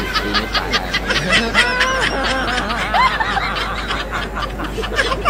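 Laughter: a rapid, continuous run of short high-pitched giggles.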